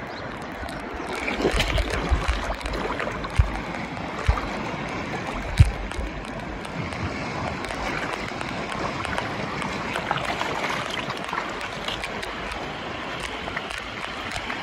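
Shallow seawater washing and gurgling over lava rock at the shoreline, with a few dull thumps in the first several seconds.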